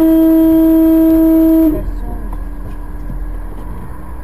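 A vehicle horn sounding one steady note for about two seconds, then cutting off abruptly. Engine and road noise from inside a moving car run on underneath.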